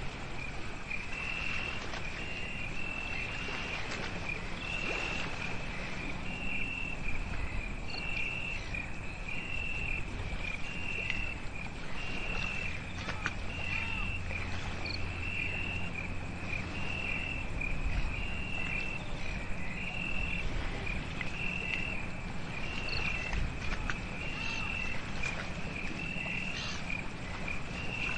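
Crickets chirping at night: a high chirp repeating about once a second over a steady high trill, with a soft background hiss.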